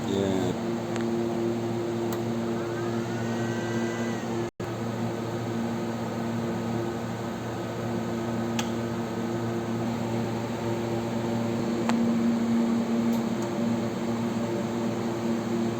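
Power inverter running on test, a steady electrical hum with a cooling-fan whir. The sound drops out for an instant about four and a half seconds in.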